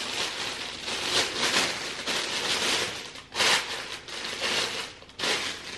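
Plastic slow cooker liner crinkling as it is shaken open and pressed down into the slow cooker's crock, in several louder rustling bursts.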